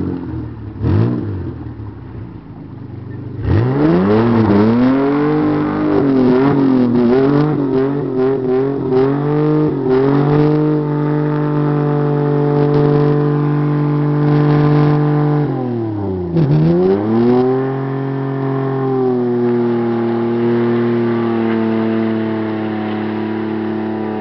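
Ford Ranger pickup's engine revving hard while driven through deep mud: a few seconds in the revs climb sharply, then rise and fall rapidly for several seconds before holding high. About two-thirds through the revs drop steeply and climb again, then settle and slowly ease off as the truck pulls away up the muddy track.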